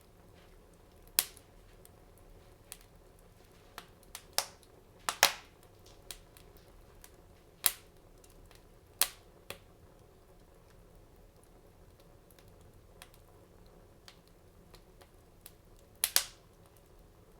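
Wood fire in a fireplace crackling: sharp pops at irregular intervals, several seconds apart, with fainter ticks between them and a double pop near the end.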